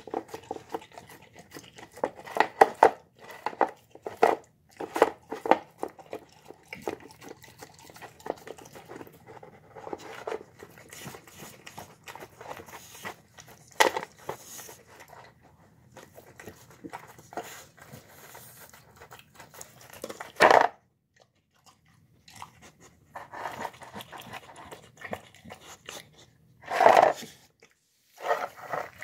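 A dog eating soft food from a plastic bowl, with irregular wet chewing and licking sounds. There are two louder noises, one about twenty seconds in and one near the end.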